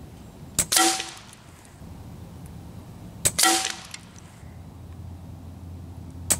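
Hatsan Factor RC regulated PCP air rifle firing three shots about three seconds apart, the last near the end. Each is a sharp crack followed at once by a short ringing clang.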